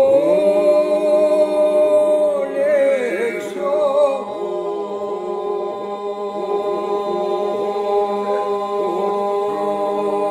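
Unaccompanied Albanian Vlorë-style polyphonic singing. A group holds an unbroken drone under a lead voice that sustains long notes, with quick ornamental turns about three seconds in.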